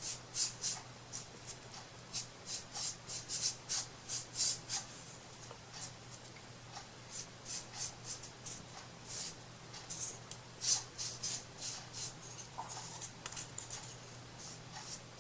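Paintbrush brushing paint onto a wooden piece in short, scratchy strokes, two or three a second, with a brief pause partway through. A faint steady low hum sits underneath.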